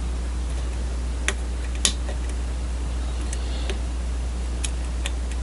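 Scattered light clicks and ticks of a hook pick and tension wrench working the pins of a pin-tumbler challenge lock, half a dozen in all, the loudest a little under two seconds in, over a steady low hum.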